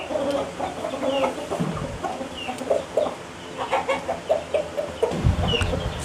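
Chickens clucking and calling in many short, repeated calls, with small high chirps among them. A dull low thump comes about five seconds in.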